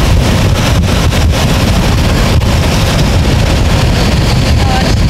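Wind buffeting the microphone over the steady road and engine noise of a moving car, a loud, even rumble with no break.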